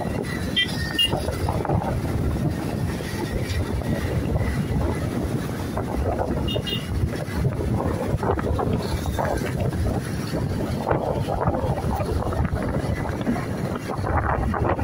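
Road traffic and wind buffeting the microphone while riding in a moving vehicle among scooters, a steady rumbling drone. Two brief high beeps sound, about a second in and about six seconds in.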